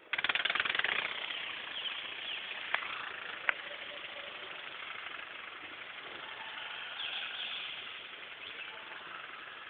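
Small four-winged model ornithopter in flight, its flapping wings and drive making a rapid fluttering buzz. It starts abruptly and is loudest for the first second, then runs steadier, with two sharp clicks around three seconds in.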